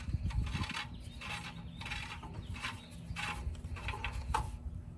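Old upstream oxygen sensor being twisted out of the exhaust manifold's threaded bung by hand, giving a run of short scraping sounds, about seven in all, one every half second or so.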